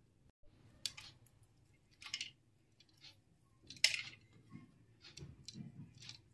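Faint, scattered clicks and light rustles from handling a serving bowl of halwa while slivered nuts are sprinkled over it, with one sharper click about four seconds in.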